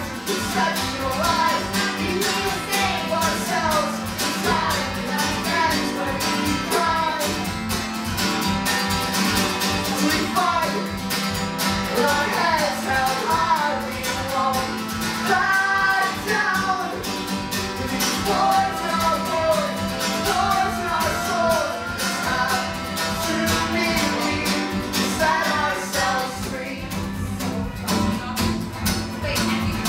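Acoustic guitar playing under two women's voices singing together. The voices drop out near the end while the guitar plays on.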